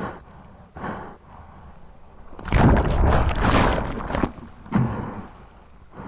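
Whitewater splashing and rushing around a bodyboard being paddled through foam: short splashes about once a second, then a loud rush of churning water for nearly two seconds in the middle, and one more splash near the end.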